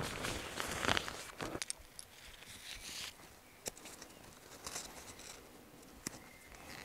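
Footsteps and rustling for about the first second and a half, then quieter handling of nylon hammock fabric with a few small sharp clicks as straps and clips along the hammock's edge are worked.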